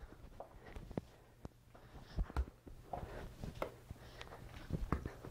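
Faint thuds of sneakers landing on a studio floor during alternating high front kicks (toy soldier kicks), with scattered light clicks. Two pairs of low thuds stand out, a bit over two seconds in and again near the end.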